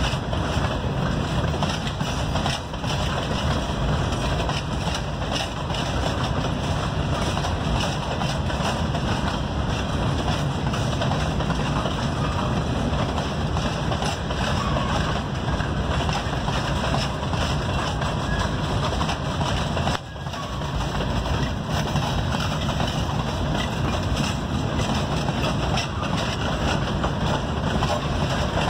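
Empty open-top hopper cars of a freight train rolling past, a steady din of steel wheels on the rails, with a brief lull about twenty seconds in.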